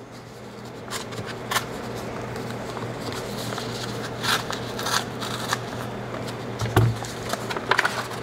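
Small scissors snipping open a kraft paper envelope, then stiff paper rustling and crinkling with scattered sharp clicks as the envelope is handled and pulled apart.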